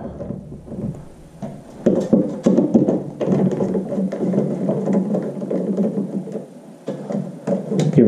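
Screwdriver loosening the screws of a smoke detector's ceiling mounting plate: scattered small clicks and scrapes of metal tool on screws and plastic, over a low steady background sound.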